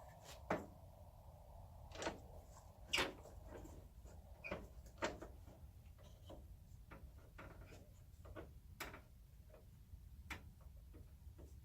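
Scattered light knocks and clicks of wood pieces and tools being handled, about a dozen spread irregularly, the loudest about three seconds in, over a low steady hum.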